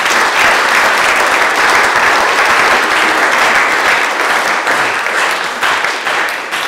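A room full of guests applauding, thinning to scattered separate claps near the end.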